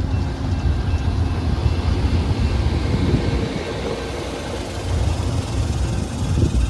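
Amtrak passenger train running, a steady low rumble.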